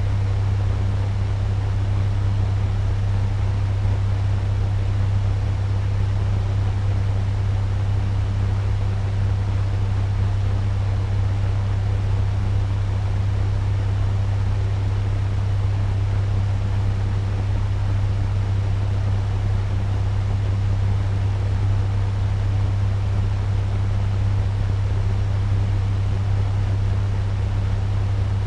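Turbo fan running steadily at medium speed: a strong constant low hum under an even rush of moving air.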